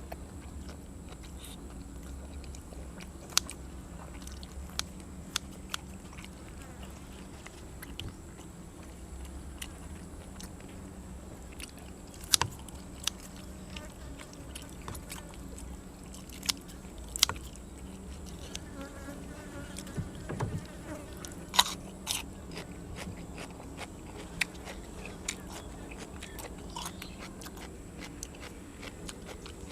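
Mukbang eating sounds: sharp crunching bites every few seconds, with quieter chewing between, as grilled cuttlefish and raw vegetables are eaten. A steady high insect buzz runs underneath.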